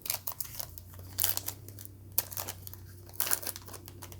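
Plastic-foil trading card pack wrapper being crinkled and torn open, in several short crackling bursts a second or so apart.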